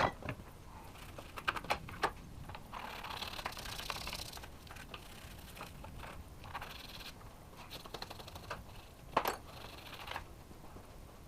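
Irregular light clicks and taps of hand tools and parts being handled during hands-on work on the car, with a stretch of scraping about three seconds in and a sharper knock about nine seconds in.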